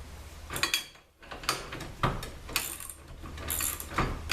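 Irregular metallic clicks and rattles of hoist hardware being handled while nylon lock nuts are fitted onto the mounting bolts, with a brief quiet gap about a second in.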